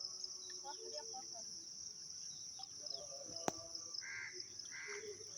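A steady high insect drone, with a bird calling twice near the end and a single sharp click about three and a half seconds in.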